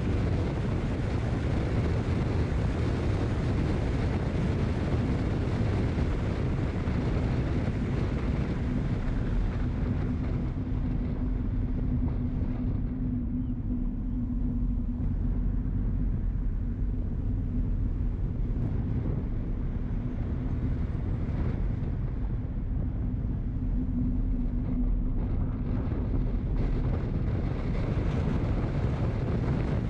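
Wind rushing over the microphone of a vehicle-mounted action camera while driving, over low road and engine rumble. A steady low hum comes in about ten seconds in and drops away near the end, while the hiss eases over the same stretch.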